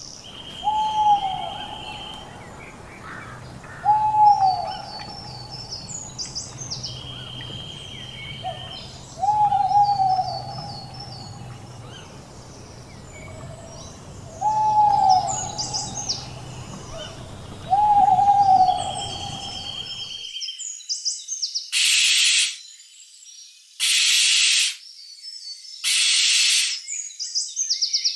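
An owl's short hooting call, rising then falling, repeated five times a few seconds apart over other birds' chirps and whistles and a low hum. After a sudden cut, three harsh, hissing screeches come about two seconds apart.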